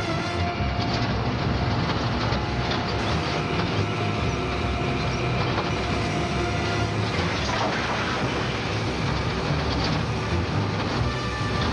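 Truck engine running hard, with the wooden flatbed and body rattling and clattering steadily as the truck barrels along the road.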